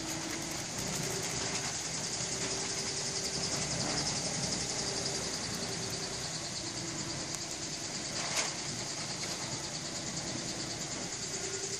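Steady machine hum with a faint wavering tone and a high hiss, with one short sharp click about eight seconds in.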